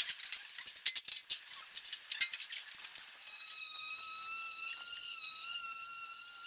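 Quick rubbing and scrubbing strokes on a bumper, then from about three seconds in, a small electric sander starts and runs with a steady, slightly wavering whine.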